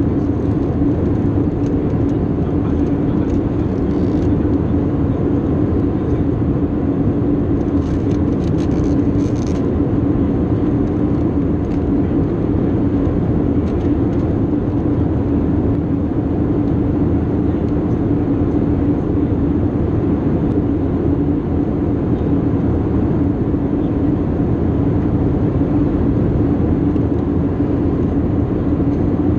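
Steady cabin noise inside an Airbus A320-232 in flight: the rush of air past the fuselage and the drone of its IAE V2500 engines, with a steady low hum.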